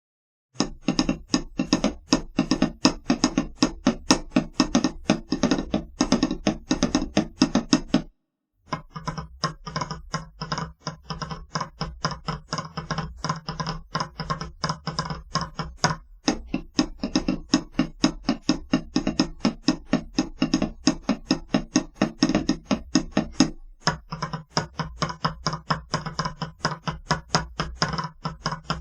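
Drumsticks striking Yamaha DTX electronic drum pads of rubber and silicone in fast, even strokes, several a second: the plain stick noise of the pads. The playing stops briefly about eight seconds in, then goes on.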